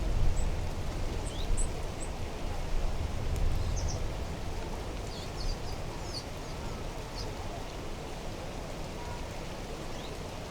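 A steady rushing outdoor noise, loudest at first and easing off over the first several seconds, with short, thin, high bird chirps scattered through it.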